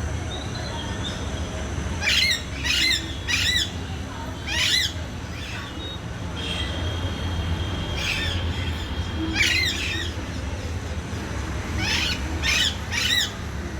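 Parrot calling: short calls that bend in pitch, mostly in runs of two or three about half a second apart, repeated several times over a steady low rumble.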